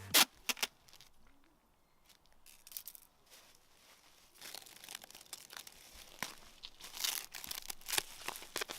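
Bubble wrap crinkling and crackling as it is wound around a football, with two sharp snaps right at the start. About halfway through the crinkling becomes denser, with many quick crackles.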